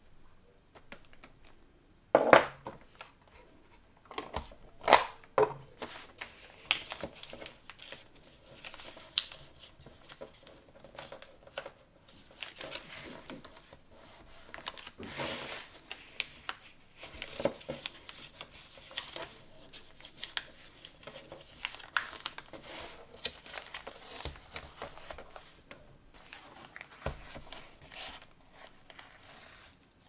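Hands folding and creasing kraft paper around a small parcel: irregular paper rustling and crinkling broken by sharp taps, loudest about two seconds in and again near five seconds. Near the end, jute twine is wrapped around the parcel.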